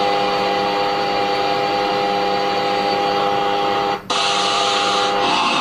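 A steady machine hum: a constant whirring hiss with several held tones, broken by a brief cut in the sound about four seconds in.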